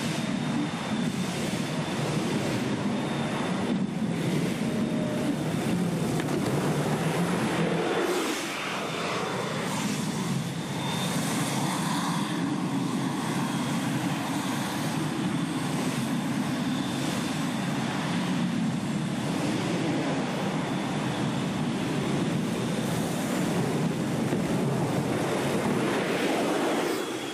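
Steady noise of heavy engines running, with a brief drop in level about eight seconds in.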